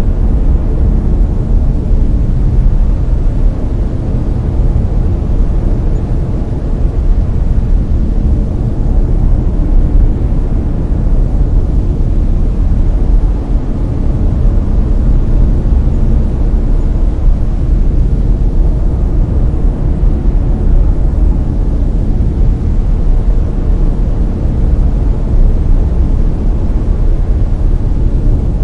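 Layered brown noise: a loud, steady, deep rumbling hiss.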